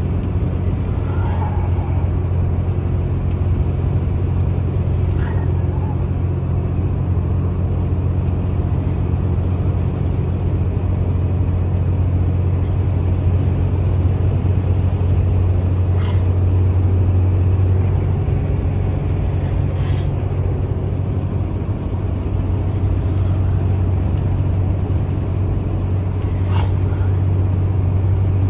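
A person snoring with short, high-pitched, hissing snores, one about every three and a half to four seconds, over a steady low hum that is the loudest sound.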